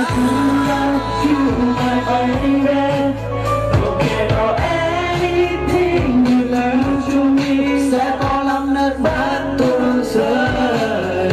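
A male singer singing live into a handheld microphone over a loud pop backing track, part of a Vietnamese pop song mashup.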